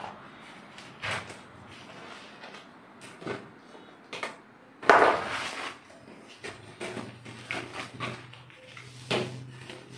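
Rustling and crackling of a large rolled canvas print being unrolled and smoothed flat on a tiled floor by hand, with scattered knocks. The loudest burst comes about halfway through.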